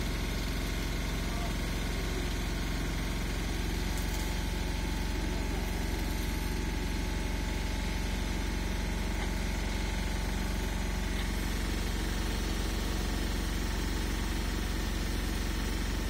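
Engine of a truck-mounted aerial work platform running steadily at idle: a low, even drone that holds the same level throughout.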